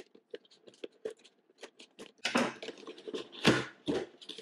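Accessory packaging being opened and handled by hand: light clicks and taps, then louder crinkling rustles from about two seconds in.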